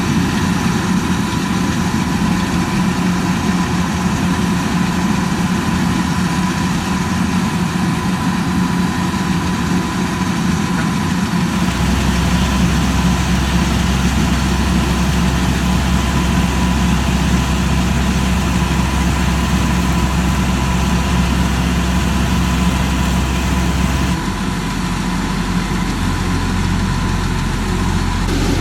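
Rice combine harvester's engine running steadily, with a constant hum and a steady high whine. The low rumble under it changes abruptly twice, about twelve and twenty-four seconds in.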